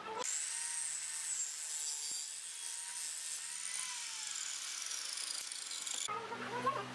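Compound miter saw cutting through a wooden board: a steady high-pitched whine and hiss of the blade in the wood, which stops about six seconds in, giving way to a few knocks.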